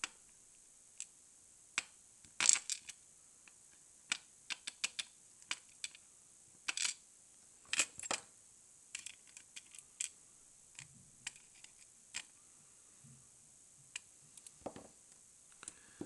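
Irregular small metallic clicks and taps as a Mul-T-Lock cylinder is taken apart by hand: tweezers picking at pins, and brass plug, housing and pin parts set down on a pinning tray. The clicks come singly and in quick clusters, a few sharper than the rest.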